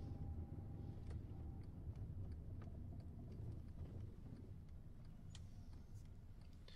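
Low steady rumble of a car cabin on the move, with light, irregular ticks and clicks over it.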